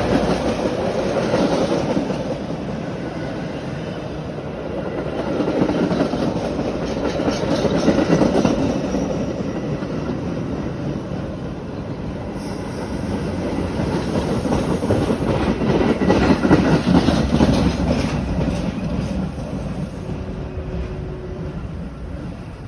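Metra commuter train rolling through the station, wheels clacking over the rails, swelling twice as cars pass and fading near the end.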